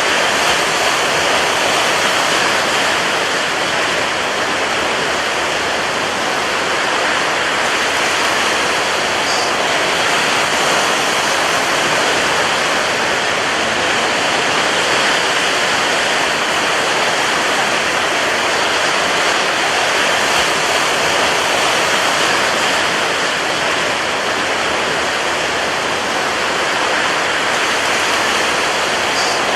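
Rough sea surf heard as a steady, unbroken rush of water noise.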